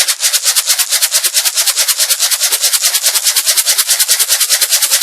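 A homemade container rattle shaken fast and steadily, giving a sharp, even hiss of rattling strokes at about a dozen a second.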